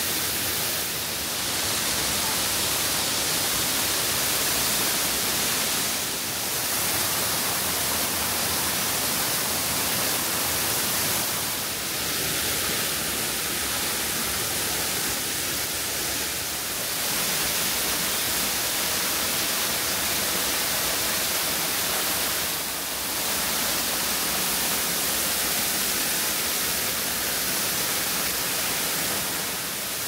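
Nabegataki waterfall: a steady, loud rush of falling water, with brief dips in level every five or six seconds.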